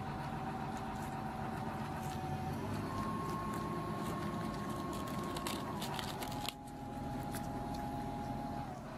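Quiet outdoor ambience of rabbits grazing close to the microphone: steady background noise with a faint steady hum, and a short run of soft clicks and rustles about five to six seconds in.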